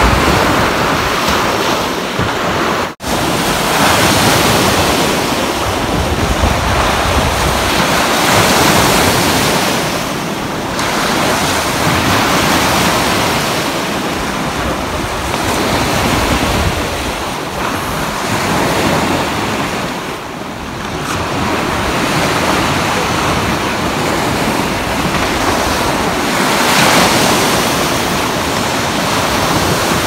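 Baltic Sea waves washing in and breaking over flat granite shore rocks, swelling and easing every few seconds, with wind rumbling on the microphone. The sound cuts out for an instant about three seconds in.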